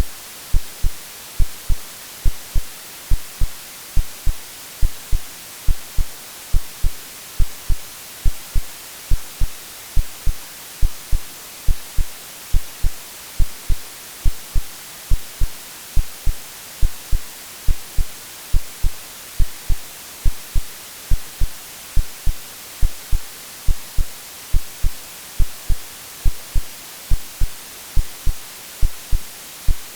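AI-generated white noise hissing steadily under a synthesized heartbeat, whose low paired lub-dub thumps repeat at an even, calm pace.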